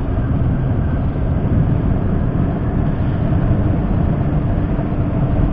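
Sport motorcycle under way, its engine running under a steady rush of wind noise, with a faint steady tone joining about halfway through. The rider is holding the bike back on engine braking.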